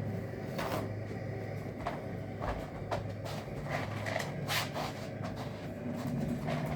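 Wood pellets in a puppy litter box rattling and clicking in scattered short bursts as soiled pellets are scooped out, over a steady low hum.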